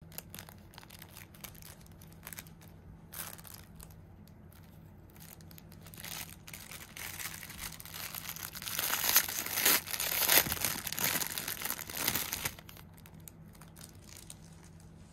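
Thin clear plastic bag crinkling as a cat toy is handled and worked out of it: scattered crackles at first, then a loud, dense stretch of crinkling for a few seconds past the middle that stops suddenly, leaving faint room tone.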